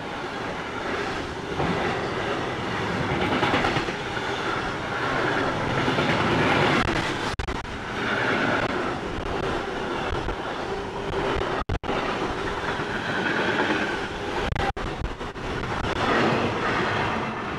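Container freight wagons rolling past close by, a steady loud rumble and rush of wheels on the rails, with a few very brief dropouts.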